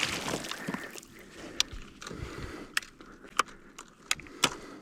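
About half a dozen sharp, irregularly spaced clicks and light knocks from fishing gear being handled on a kayak, over a faint wash of noise.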